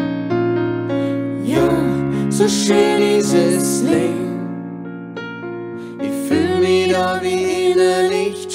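A slow song with sustained keyboard chords. A singing voice comes in about a second and a half in, breaks off around the middle, and returns about six seconds in.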